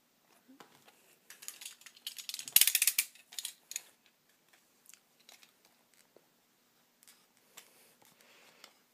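Orange snap-off utility knife cutting through a stiff plastic blister pack, the plastic crackling and scraping. The cutting comes in a burst, loudest about two and a half seconds in, then trails off into scattered light clicks and scrapes.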